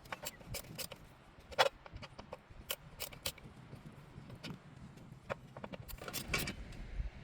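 Irregular small metal clicks and taps of hand tools and screws being handled while Torx screws are backed out of a Jeep's tail-light wiring plug, one sharper clack about a second and a half in.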